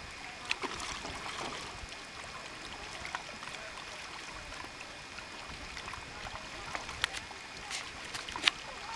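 Kayak paddling on choppy open water: a steady wash of small waves lapping at the hull, with sharp paddle splashes and drips now and then, the loudest few near the end.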